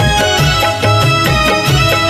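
Instrumental music with a quick, even drumbeat over a low bass line and sustained melodic tones, no voice.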